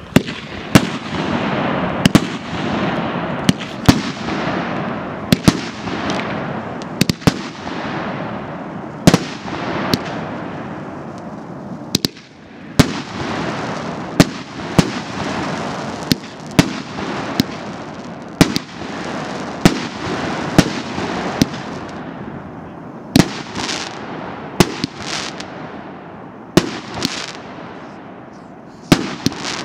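Consumer fireworks cake, the С9011 'Императорский' multi-shot battery, firing shot after shot: a sharp crack about every second, with a continuous rushing, crackling wash of bursting stars between the shots.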